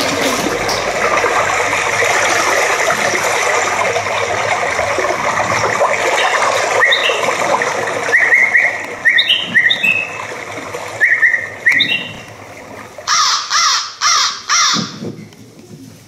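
Applause dying away, then a recorded bird sound effect played over the hall: short rising chirps for several seconds, followed by four loud, harsh caws like a crow's near the end.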